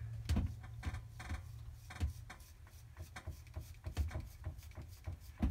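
Soft, scattered clicks and rubbing of makeup being handled and applied to a face, over a low steady hum.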